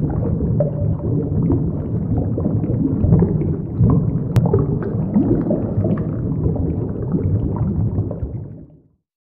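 Underwater ambience sound effect: a deep, steady rumble with gurgling bubbles, fading out about a second before the end.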